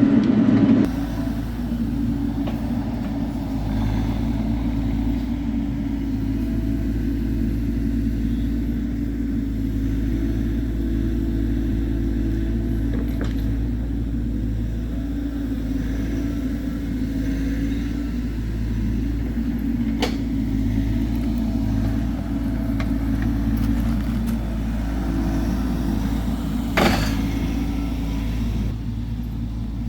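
Bobcat E42 mini excavator's diesel engine running steadily under load while digging a drainage channel, with a faint click about two-thirds of the way through and a louder brief knock near the end.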